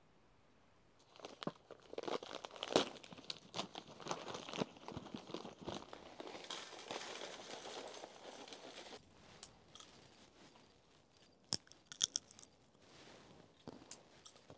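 A plastic snack bag of sunflower seeds crinkling and rustling as it is handled and the seeds are poured into a wooden bowl. A few seconds later come several short, sharp cracks as the seeds' shells are cracked open.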